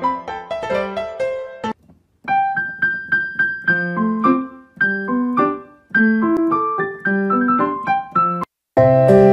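Background piano music: a quick run of single notes that ring and fade. It cuts out briefly about two seconds in and again near the end, where a different track with held notes begins.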